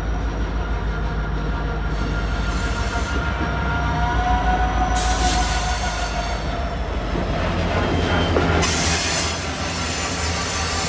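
Union Pacific diesel freight locomotive running past close by, pulling loaded hopper cars, its engine rumbling under a thin squeal of steel wheels on the rail. The sound grows brighter and louder about halfway through and again near the end as the locomotive draws alongside.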